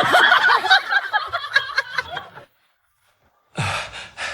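A person snickering and laughing in quick bursts for about two and a half seconds. After a second of silence, a short loud low sound comes near the end.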